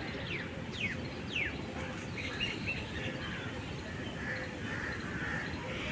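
Birds calling: three quick downward-sliding whistled calls in the first second and a half, then a few short chirps, over a steady low background hum.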